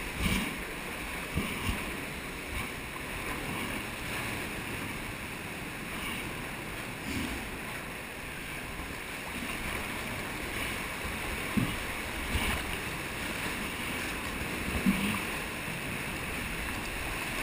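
Seawater sloshing and surging inside a sea cave close to the camera: a steady wash, with a few brief thumps now and then.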